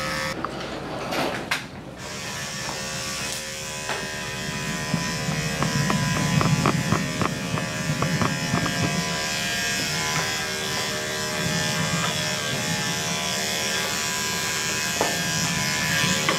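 Electric dog grooming clippers running steadily as they cut through the dog's coat, with a short break near the start and scattered light clicks in the middle.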